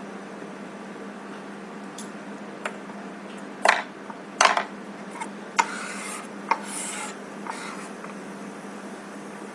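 Metal wax knife scraping and tapping on a block of dental carving wax: a handful of short scrapes and clicks, the two loudest near the middle, over a steady low hum.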